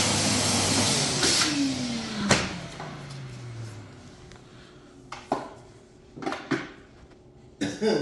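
A vacuum cleaner's motor switched off and winding down, its pitch falling steadily over two or three seconds as the running noise fades. A few light knocks and clatters follow.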